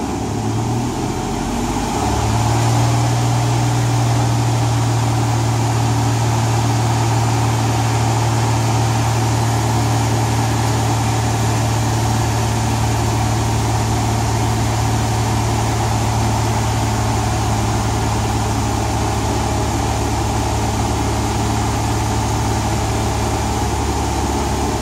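A 1998 Oldsmobile Bravada's 4.3-litre V6 running steadily, heard from inside the vehicle. It picks up slightly about two seconds in and then holds an even note.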